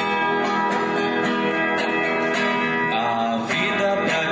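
Acoustic guitar playing chords, struck in a regular rhythm with the notes ringing on.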